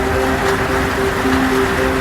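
Soft music with a repeating pattern of short pitched notes, over a steady hiss of heavy rain.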